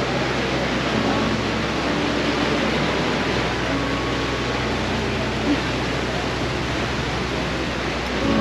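Steady rushing noise of wind and water on a motor boat under way, with the low, even hum of its engine underneath.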